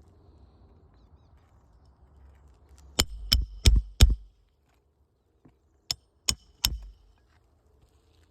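Hammer blows on metal, typical of a hammer driving roofing nails into asphalt shingles: four quick strikes, a pause of about two seconds, then three more, each with a short metallic ring.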